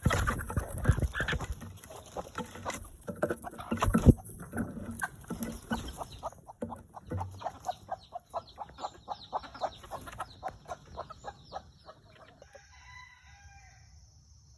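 Chickens clucking over a dense run of quick taps and knocks that thin out and fade over about twelve seconds, with one loud knock about four seconds in. A few short bird calls come near the end.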